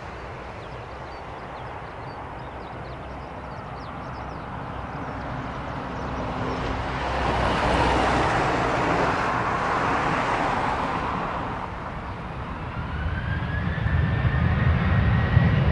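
Boeing 737's CFM56 turbofan engines running as the airliner rolls past on the runway; the jet noise swells and eases, then near the end a rising whine and deepening rumble come in as the engines spool up.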